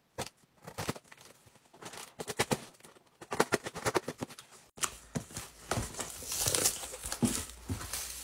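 Cardboard shipping box being opened by hand: scattered scratches and taps on the cardboard, then from about halfway a denser rustling and tearing as the taped flaps are pulled open.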